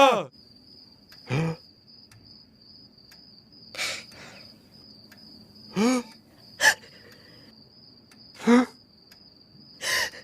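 A steady high-pitched trill runs under the whole scene, broken by about six short vocal outbursts a second or two apart, cartoon sneeze-like sounds building up.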